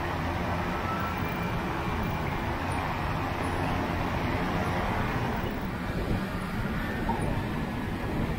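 Steady rush of wind on the microphone with the drone of the pusher propeller, driven by the Geiger HPD20 electric motor of an Aeros ANT electric trike in flight. A few low tones from the propeller are clearest near the start and then sink into the wind noise.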